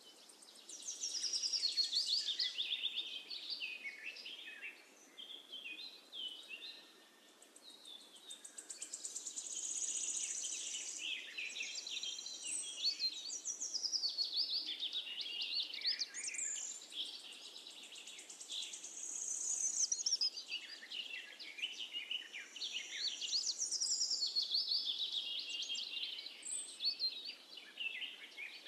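Small birds chirping and singing without pause, a busy overlap of quick trills and rising and falling whistles.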